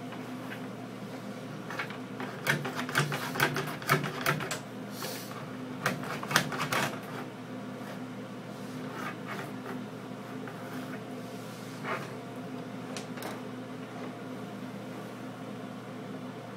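A steady low electrical hum, with a burst of quick clicks and rattles from about two to seven seconds in and a few single clicks later.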